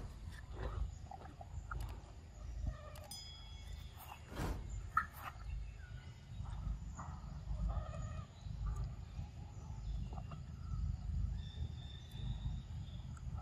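A long-tailed macaque biting and chewing a ripe mango, with wet, scattered clicking mouth sounds over a steady low rumble and occasional faint bird chirps.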